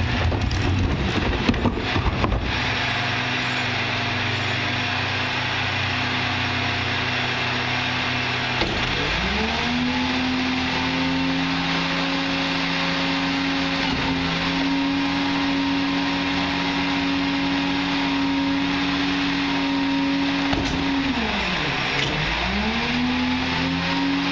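Rear-load garbage truck (1997 Crane Carrier LET with Wayne Royal GT packer body) working a packing cycle: a few clanks in the first couple of seconds, then the diesel engine runs steadily. About nine seconds in it revs up to drive the hydraulic packer and holds a higher steady pitch, then dips briefly and revs up again a few seconds before the end.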